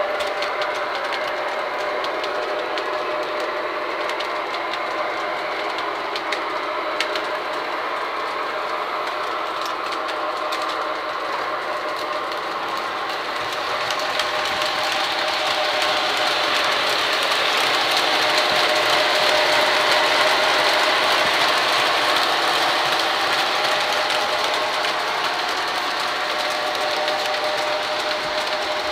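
O-gauge model trains running on three-rail track: a steady rattle and hum of wheels and motors with a faint wavering whine, swelling louder in the middle and easing off toward the end.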